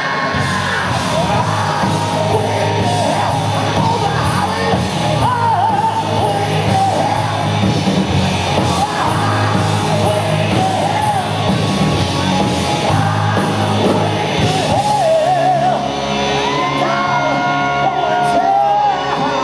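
Rock music with a sung vocal line over a full band, running at a steady level.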